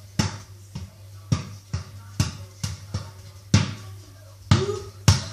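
A ball bouncing repeatedly on a hard floor, about ten bounces at uneven intervals, each a sharp knock with a short ring, over a steady low hum.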